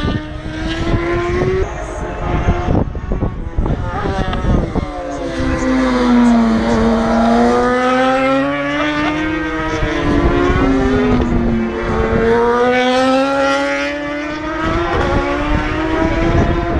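Race motorcycles at high revs on a road-racing course, the engine note falling as a bike brakes into a hairpin and rising as it accelerates out. This happens twice, as one bike follows another through the bend.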